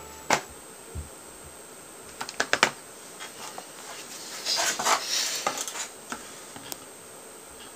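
Scattered light clicks and clinks of small hard objects, with a quick run of clicks about two and a half seconds in and a short clattering burst a little past the middle.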